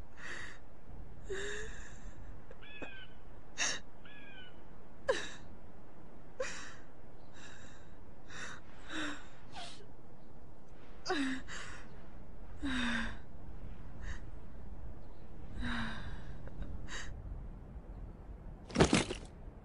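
A young woman crying: repeated short gasping sobs and breaking whimpers, one every second or so, over a steady low background. Near the end comes a single louder, sharp sound.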